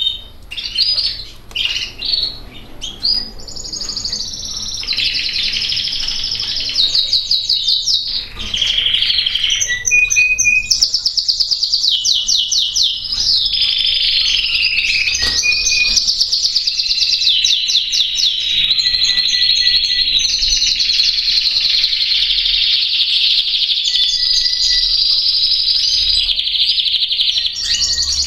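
Harzer Roller canary singing its classic rolling song: a few short separate phrases at first, then long, near-unbroken runs of fast, even trills and rolls.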